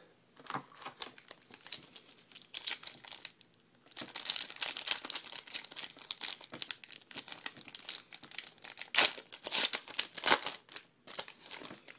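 Plastic foil trading card pack wrappers being torn open and crumpled by hand, an irregular crinkling and crackling that starts sparse and gets busy about four seconds in, with the loudest crackles near the end.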